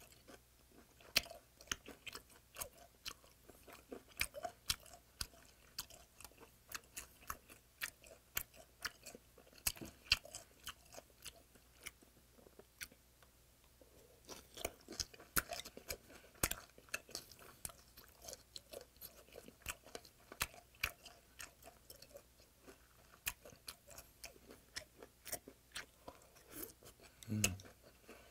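Close-up chewing and crunching of spicy raw yellow stingray salad, many sharp irregular crunches as the still-firm stingray cartilage is bitten through, with a quieter pause of a few seconds midway. A short rising hum near the end.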